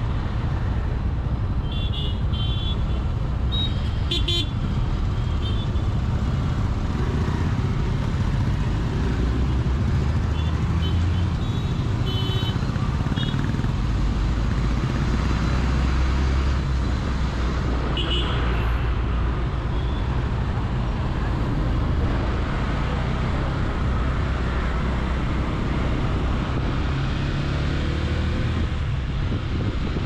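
City traffic heard from a motorcycle: a steady low rumble of engines and road noise, with several short vehicle horn toots from surrounding traffic in the first twenty seconds, most around two to four seconds in and again around twelve and eighteen seconds in.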